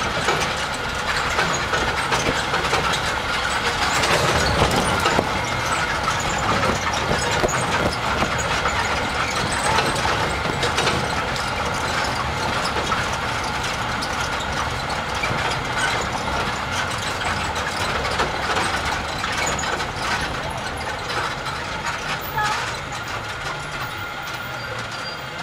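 Open-air resort tram travelling along a paved path, its engine and tyres making a steady running noise.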